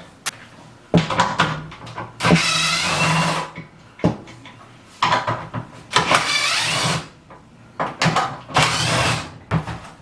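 Cordless power driver running in three bursts of about a second each, its pitch bending as it spins up and down, with sharp clicks and knocks between the bursts as parts of a washer door hinge are worked on.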